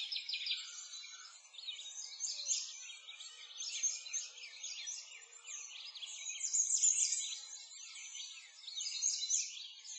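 Many small birds chirping and singing together in a dense chorus of quick, high chirps that overlap without pause, swelling and fading.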